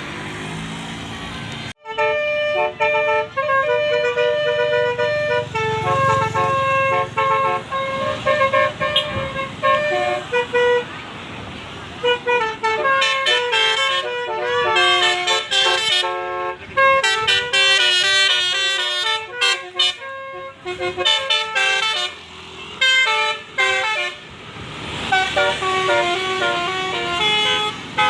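Bus telolet horn of the 'basuri' type playing a tune of short, stepped notes, starting about two seconds in. The tune turns faster and busier about halfway through.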